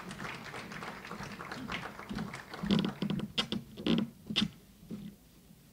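Irregular taps and knocks, close together at first and then thinning out, with a few louder separate knocks between about three and four and a half seconds in.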